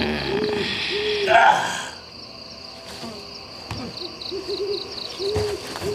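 Owl hooting at night: short, rounded single hoots, with a quick run of three about four and a half seconds in. A person's drawn-out groan, sinking in pitch, dies away in the first moments.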